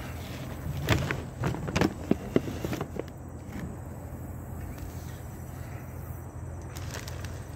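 A quick run of crinkles and clicks, as from handling the sandwich in its paper wrapper, starting about a second in and lasting some two seconds, over a steady low hum.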